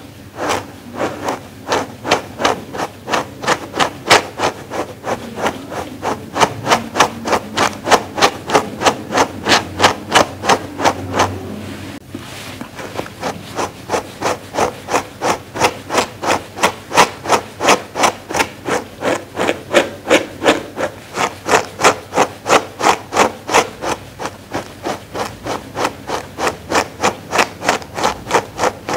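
Grooming brush stroked over a faux-fur pad in a steady rhythm of about two to three brushing strokes a second, with a brief break about twelve seconds in.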